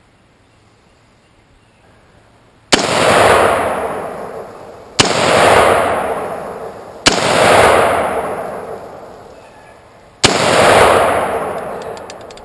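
Four single shots from an AR-15 rifle, a few seconds apart. Each crack is followed by a long echo that dies away over about two seconds.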